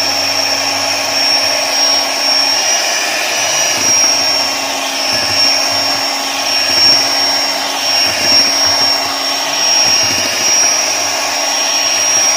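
Electric hand mixer running steadily with a constant high-pitched whine, its beaters whipping cream.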